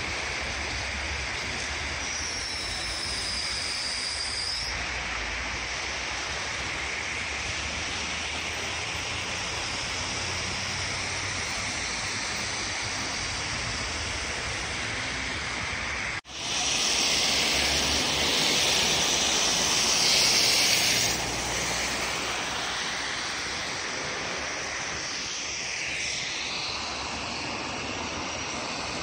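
Street traffic on a snowy road: a steady hiss of vehicles and tyres, with a high whine for a couple of seconds near the start and a louder hiss for a few seconds after a brief dropout just past the middle.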